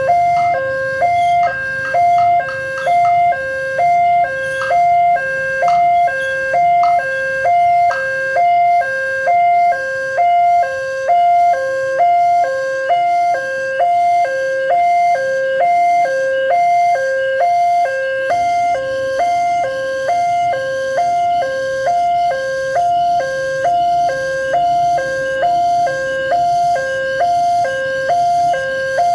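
Railway level-crossing warning alarm sounding its fast-tempo electronic two-tone signal, a higher and a lower tone alternating steadily about once a second, which warns that a train is approaching.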